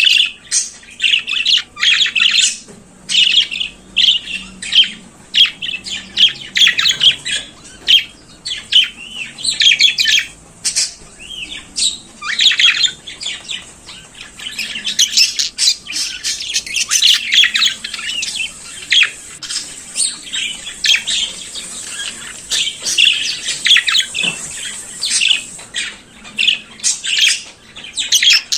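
Budgerigars chattering and warbling: a steady run of rapid chirps, trills and squawks with short gaps between phrases.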